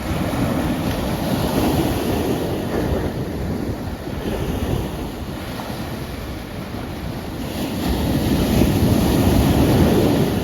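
Ocean waves washing in as steady surf, with a swell over the first few seconds and a louder one building about eight seconds in.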